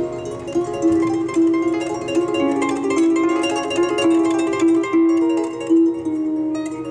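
Solo harp playing a light waltz: a stream of plucked notes, with one bright melody note struck again and again over lower chords.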